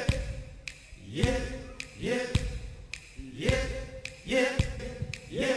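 A male singer's short amplified 'yep', looped back to back about five times, once every second or so. Each repeat slides quickly up in pitch to a brief held note, with thuds from the live band under it.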